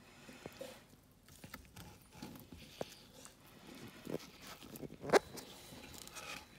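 A tortoise biting and chewing green leaves, heard as irregular small crunches and tearing clicks, the loudest about five seconds in.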